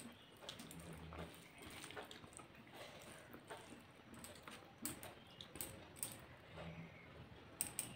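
Faint, irregular clicks and taps of fingers mixing rice and dal on a steel thali plate, with quiet chewing sounds.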